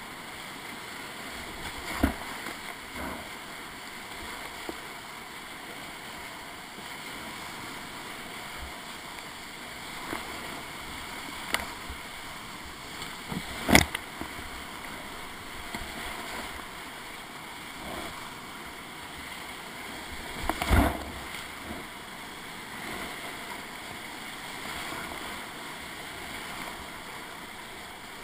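Whitewater rapids rushing steadily around a kayak running the rapid, with sharp knocks and splashes against the boat now and then, the loudest about halfway through and a longer thump about three-quarters of the way through.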